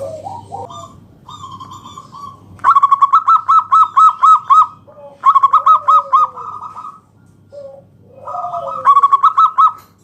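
Zebra dove (perkutut) song: three loud phrases of quick staccato cooing notes, about seven a second, each lasting one to two seconds, with softer, lower sliding coos between the phrases.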